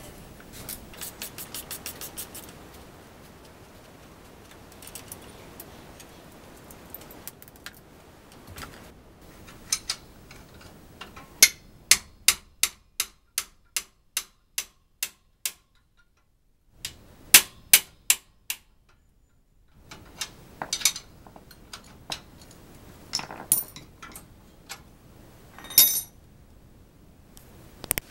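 Sharp metallic clicking from hand work on an electric-assist bicycle's rear hub and axle nut. A quick run of clicks comes early, then a steady train of single ticks about two to three a second, then scattered louder clicks.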